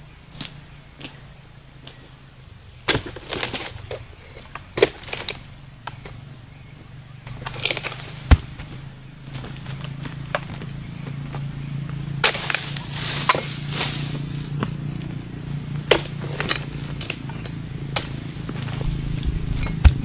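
Steel harvesting chisel (dodos) on a long pole jabbing and chopping into the frond bases of a low oil palm: irregular sharp strikes, with a denser, louder run of them a little past the middle. A low steady hum builds underneath from about nine seconds in, and insects whine high in the background.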